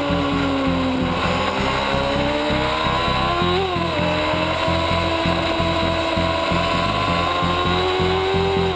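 Sport motorcycle engine running at high revs under throttle, heard from onboard with wind rush. The pitch sags a little, climbs, and drops sharply at an upshift from second to third about three and a half seconds in, then holds high and steady.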